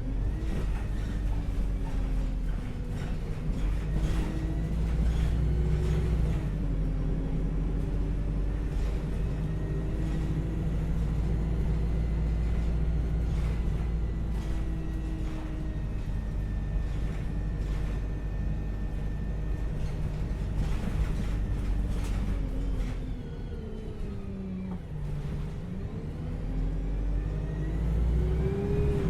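Bus engine running on the move, with a deep steady rumble and scattered knocks and rattles. The engine's pitch rises and falls as the bus changes speed, sinking low about three-quarters of the way through and climbing again near the end.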